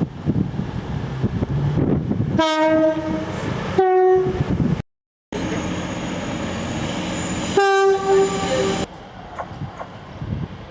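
A train's two-tone horn sounds a lower note and then a higher note, each about a second long, over the rumble of a moving train. After a brief dropout in the sound, a single horn note of about a second comes through the train noise.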